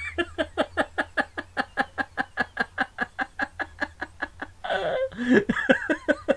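A man's voice in a fast run of short vocal bursts, about five a second, broken about four and a half seconds in by a longer drawn-out cry before the bursts pick up again.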